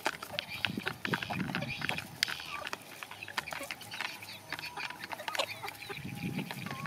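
Young chickens feeding from plastic plates: many quick, irregular clicks of beaks pecking on plastic, with high peeping calls and soft low clucking.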